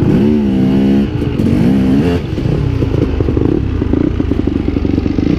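Dirt bike engine revving up twice in the first two seconds, then running steadily at low revs.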